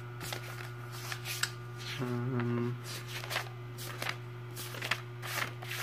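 Pages of a textbook being flipped by hand, a series of quick papery flicks and rustles.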